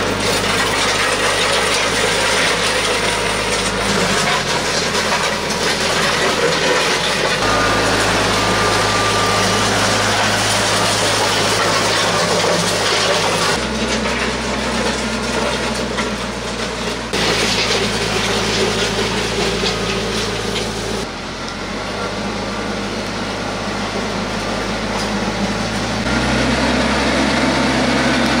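TYM T474 compact diesel tractor running steadily under load while it pulls a land plane, with the rasp of loose dirt being dragged and scraped by the plane's steel blades. The engine note jumps to a different pitch several times along the way.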